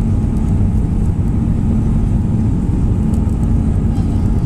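Steady cabin roar of an Airbus A319 in descent, heard from a window seat beside the wing: engine and airflow noise with a low steady hum and no change in pitch.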